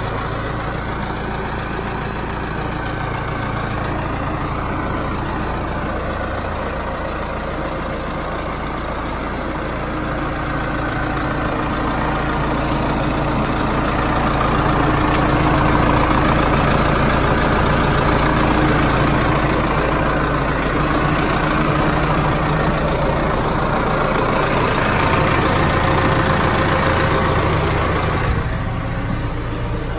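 New Holland T6.160 tractor's diesel engine idling steadily. It is louder through the middle stretch and drops back near the end.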